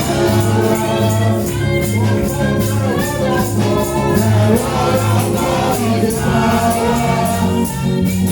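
Gospel praise music: a choir singing over a live band, with a steady beat and a pulsing bass line.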